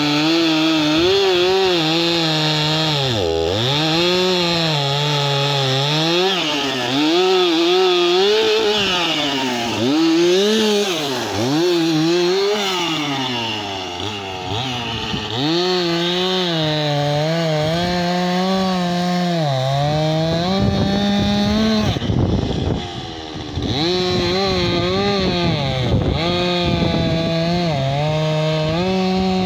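Stihl MS 271 two-stroke chainsaw cutting through a log at full throttle, its engine pitch sagging and recovering again and again as the chain loads up in the cut. About 22 seconds in the engine briefly drops off, then revs back up and runs steady.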